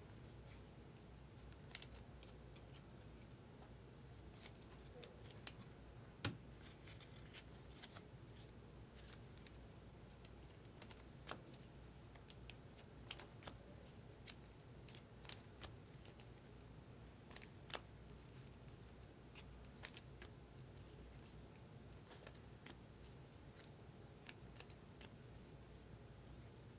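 Near silence: room tone with a low steady hum, broken by a dozen or so faint, sharp clicks and taps at irregular intervals, the clearest about six and thirteen seconds in.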